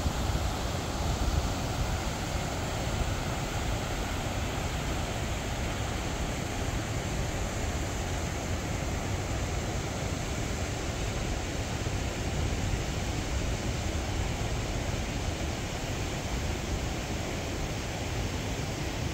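Steady rushing outdoor noise: wind on the microphone, with an uneven low rumble under an even hiss.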